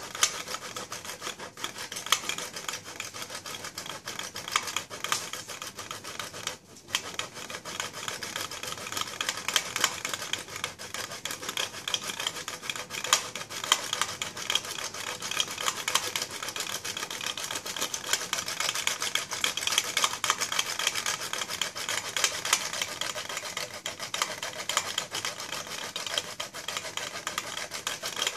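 Block of parmesan grated by hand on a metal box grater: fast, continuous scraping strokes of cheese on the grater's blades, with a brief break about six and a half seconds in.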